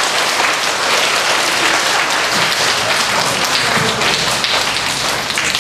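Audience applauding: a dense, steady clatter of many hands clapping at once.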